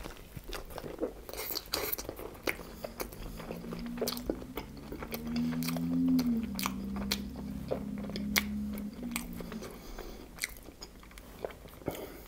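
Close-up chewing of a soft flour-tortilla chicken burrito: wet mouth clicks and smacks throughout. From about three seconds in, a long, low hummed "mmm" of enjoyment rises, drops in pitch partway through and fades out near ten seconds.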